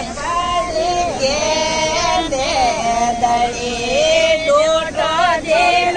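Women's voices singing a Marwari devotional bhajan together, with long held notes.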